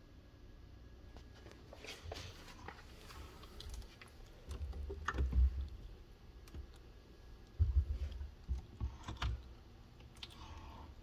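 Kitchen cabinet doors under the sink being opened and handled: scattered light clicks and knocks from the doors and hinges, with low rumbling bumps twice, around the middle and again a little later.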